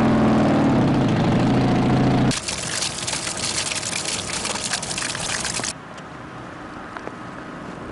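A vehicle engine idling with a steady hum, which cuts off abruptly about two seconds in. Then comes a loud, even hiss of water spraying from a broken pipe for about three seconds. That cuts off into quieter outdoor background near the end.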